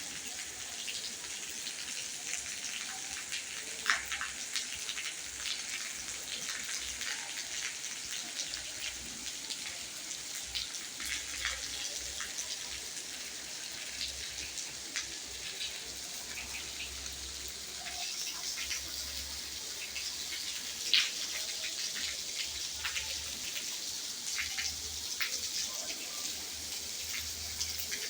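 Rain falling: a steady hiss with many separate drops pattering, and two louder drops, one about four seconds in and one past the middle.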